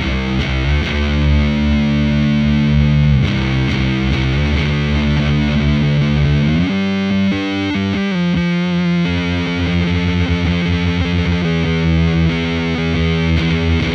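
Electric guitar played through a FuzzHugger FX Lab Ratchet fuzz pedal into a Laney VC30 valve amp: distorted chords held and changed every few seconds. With the gain high, the fuzz adds intermodulation discords to the chords.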